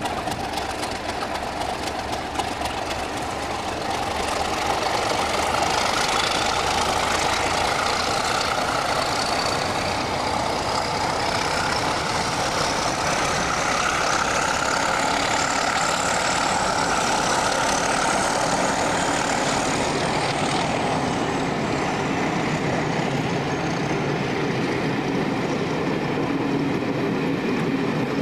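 Class 31 diesel-electric locomotives running under power with their train: a steady engine sound with a high whine that rises slowly in pitch for about fourteen seconds, then sinks and fades.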